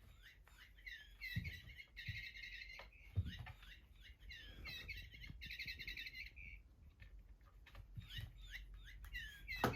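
Cat's squeaky toy ball giving repeated bird-like chirps and warbling trills in short bursts, with a few soft thuds as it is batted about.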